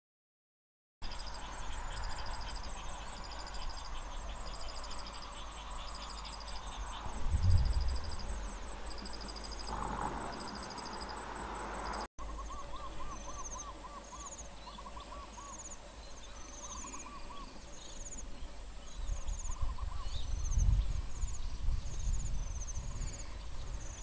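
Rice-field ambience: insects shrilling, with short high trills repeating about once a second over a steady high tone. A bird calls in short runs of quick notes in the second half. Two brief low rumbles come near the middle and near the end.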